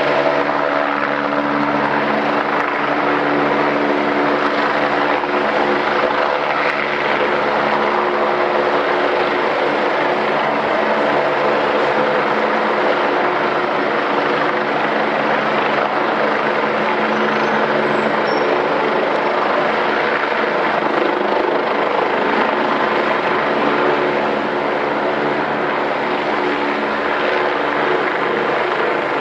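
Helicopter running close by: a loud, steady rotor and turbine noise with a hum of several steady tones beneath it.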